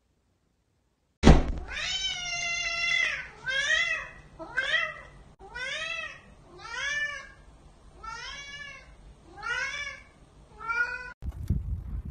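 Domestic long-haired cat meowing over and over: one long meow, then about seven shorter meows that each rise and fall, roughly one a second.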